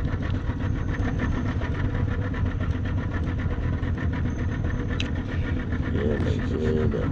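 An engine running steadily with an even, rapid pulse and a deep hum. A single sharp click comes about five seconds in.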